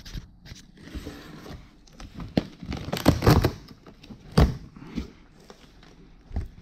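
Cardboard shipping box being opened by hand: packing tape tearing and cardboard flaps crinkling and scraping, with a few loud rips about halfway through.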